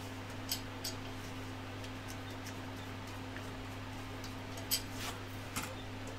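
A few short, sharp clicks of a screwdriver and small screws being handled on a desk, two near the start and two near the end, over a steady low hum.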